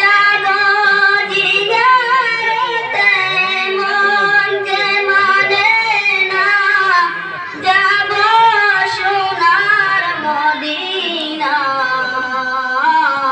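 A young man's solo voice singing a Bengali Islamic gazal into a microphone, in long ornamented phrases with wavering held notes and a short breath between phrases about seven and a half seconds in.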